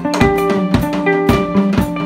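Guitar and drum kit playing together. Held guitar chords shift every half second or so over steady drum and cymbal hits at about four a second.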